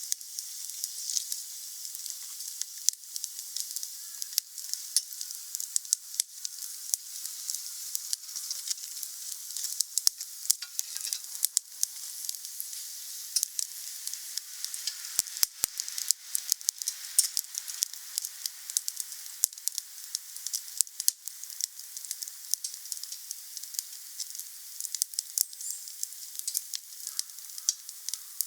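Wood fire crackling: a steady hiss under a dense, irregular run of small pops and snaps, with a cluster of sharper cracks about halfway through.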